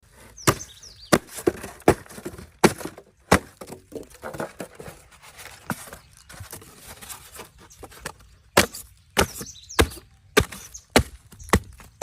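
Hammer blows in blacksmith forging, sharp separate strikes at a steady pace of roughly one and a half per second, with a stretch of softer knocks in the middle before the heavy strikes resume.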